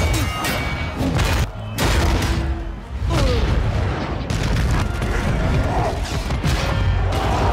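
Action-movie fight soundtrack: a dramatic music score under a string of heavy booming impacts and crashes, with metal clanging as weapons strike and something smashes into a metal wall.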